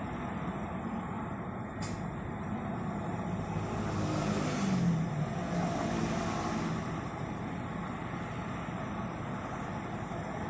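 2015 Subaru Impreza 1.6's flat-four engine idling with no cicada-like whine from the air-conditioning compressor. There is a sharp click about two seconds in, and a brief swell in noise with a dip in engine pitch around four to five seconds.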